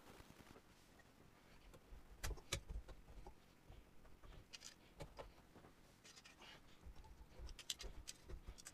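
Faint clicks and clacks of Yamaha CS-80 white keys being lifted out of the keybed and gathered in a hand. There are a couple of sharp ticks about two seconds in and a cluster of them near the end.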